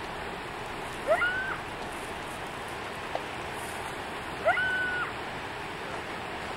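Two short animal calls about three and a half seconds apart, each sweeping quickly upward and then holding one pitch for about half a second before dropping off, over a steady rushing noise.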